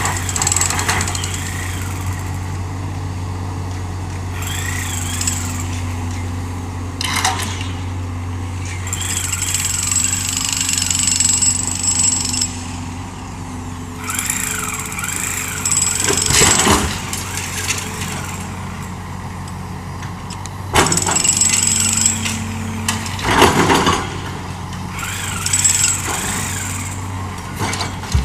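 Hydraulic excavator's diesel engine running steadily under working load, with a high whine coming and going and about four short, loud, harsh bursts as the machine works.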